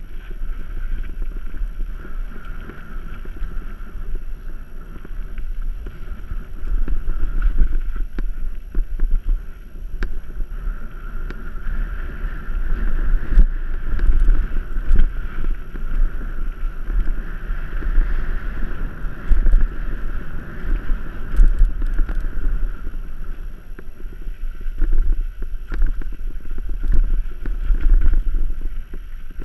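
Mountain bike descending a dirt singletrack, heard from a camera on the rider. Wind buffets the microphone and the tyres rumble over the dirt, with scattered rattles and clicks from the bike.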